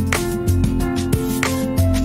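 Background music: gentle instrumental with plucked notes and a steady beat.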